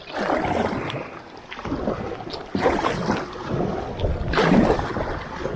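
Kayak paddle strokes, the blades dipping and splashing in the lake water in about three uneven swells.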